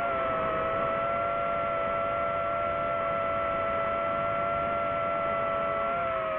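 DJI FPV drone's motors and propellers whining at a steady throttle, with a steady pitch and a slight dip in pitch near the end, over a rush of air noise.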